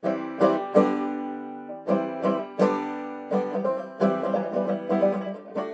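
Instrumental music on a plucked string instrument: strummed chords that ring out and fade, turning into quicker picked notes about halfway through.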